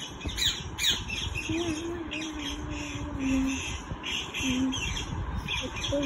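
Parrot squawking in a run of short, harsh calls, two or three a second, each dropping in pitch.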